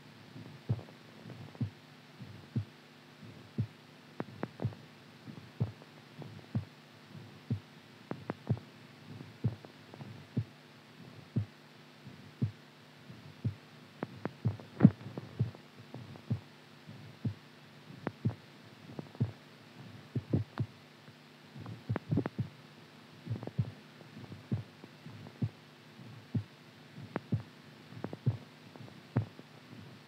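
Irregular heartbeat: low thuds about once a second at uneven intervals, some coming in quick pairs, over a steady low hum.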